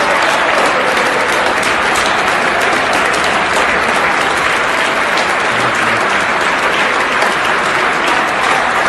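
Football stadium crowd applauding, a steady, even wash of many people clapping.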